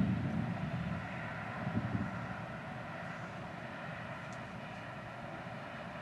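Thunder rumbling and dying away over the first second, with a second, smaller roll of thunder about two seconds in, over a steady background noise.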